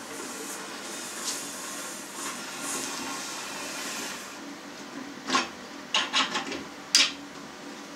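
Hand-cranked vertical sausage stuffer being turned to bleed the air out ahead of the meat: a steady faint whir from the crank and gearing, with a few sharp clicks near the end.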